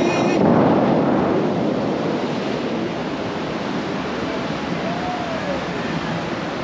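Bellagio fountain's spent water jets falling back into the lake as spray and mist, a steady wash of splashing water. Show music cuts off about half a second in.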